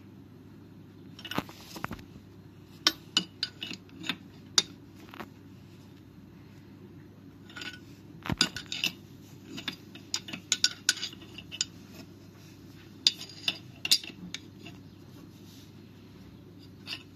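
Steel spanner clicking and clinking against a spark plug and the engine's metal as the plug is tightened into the cylinder head. The clicks come in irregular clusters of a few sharp ticks, with gaps of a second or two between.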